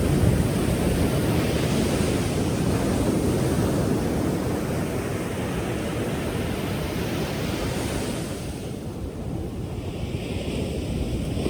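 Ocean surf: a wave breaking at the start and washing out, the rush fading about two-thirds of the way through before the next swell builds, over a steady low rumble and some wind on the microphone.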